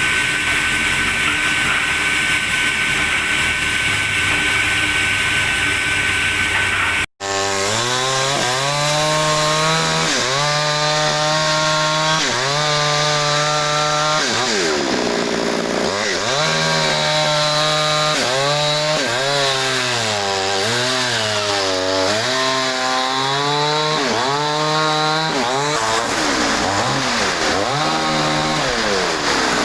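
Log sawmill saw running. After a cut, its engine's pitch repeatedly sags and recovers as the blade bites into the log under load.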